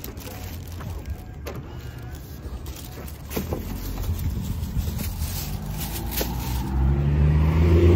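A car running on the road: a steady low rumble of engine and road noise that grows louder near the end, with a few faint clicks.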